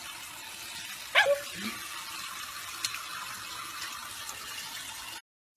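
Water running steadily from a kitchen sink faucet, with a short, bending, high-pitched squeal from the baby about a second in. The water sound stops abruptly near the end.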